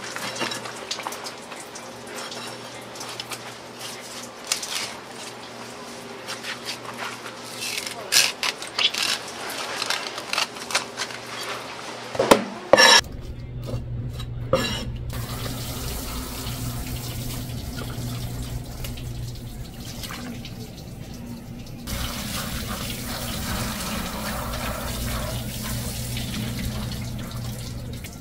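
Shop kitchen sounds: water running from a tap, with sharp clatter of dishes and utensils through the first half. About halfway through the clatter stops and a steady rush of running water carries on over a low hum.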